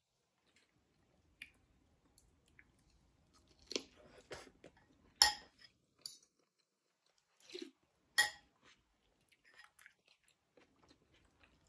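Close-up eating sounds: chewing and mouth noises, with a metal spoon knocking against the bowl a few times, sharpest about five seconds in and again about eight seconds in.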